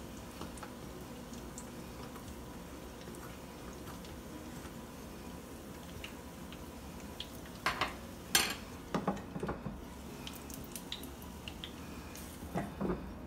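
Dumplings frying in a small pot of shallow oil, a steady low sizzle. A few sharp clinks and knocks against the pot come a little past halfway, and a pot lid clatters onto the pot near the end.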